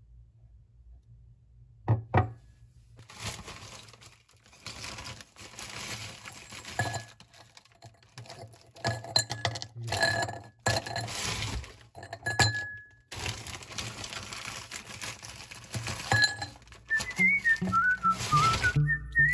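Ice cubes tipped from a crinkling plastic bag, rustling and clinking into a ribbed glass tumbler, after a couple of sharp glass clicks about two seconds in. Near the end a wavering whistled tune comes in.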